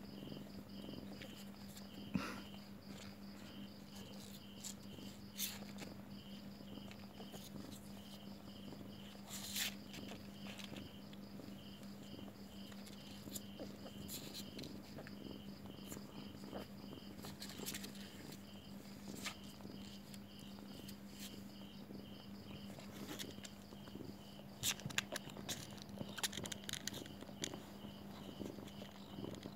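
A mother cat purring steadily while her newborn kittens nurse, with an insect chirping in an even pulse, about three chirps a second, behind it and a few soft clicks.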